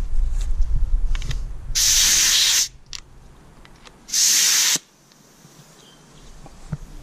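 Gravity-feed spray gun on an air hose, triggered twice: two short, sharp blasts of hiss, the first just under a second long and the second about half a second.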